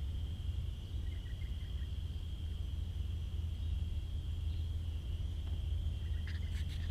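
Insects shrilling in one steady high note over a constant low rumble, with a few short clicks near the end.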